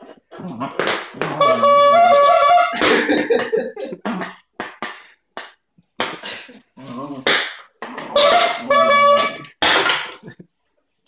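Rubber-bulb squeeze horn honking as a dog bites and squeezes it: a long honk about a second and a half in and another around eight seconds in, with shorter honks between. Short knocks and scuffs of the toy against the wooden floor come in between the honks.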